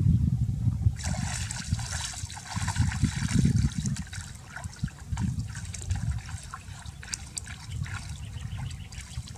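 Pond water splashing and trickling as a person wades through shallow water, with a low rumble underneath; the splashing picks up about a second in.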